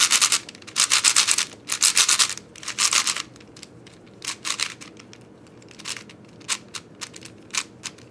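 New ShengShou 6x6 speed cube being turned: raspy plastic layer turns come in quick flurries over the first three seconds, then single turns spaced further apart. The cube is factory-lubed and still a little tight.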